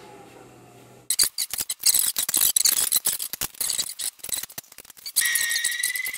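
Quick, irregular clicks and snips of a hand wire crimper/stripper working on electrical wires and crimp connectors. About five seconds in, a steady high-pitched tone starts and rises slightly in pitch.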